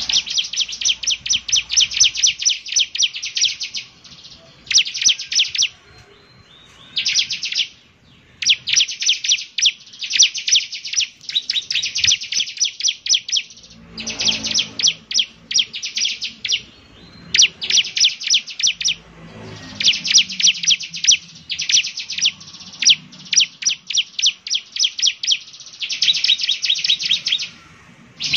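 Bar-winged prinia (ciblek) singing: rapid, dry trills of fast ticking notes, repeated in bursts of one to three seconds with short pauses between.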